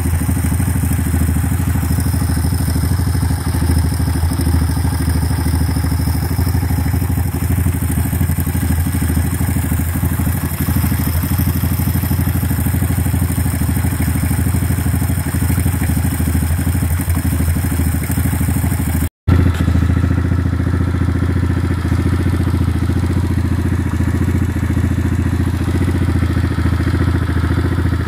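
Irbis TTR-125 pit bike's single-cylinder four-stroke engine running steadily at idle, with an extraneous clattering from the timing mechanism (camshaft drive and valvetrain) that the owner treats as abnormal. The sound cuts out for an instant about two-thirds of the way through, then carries on unchanged.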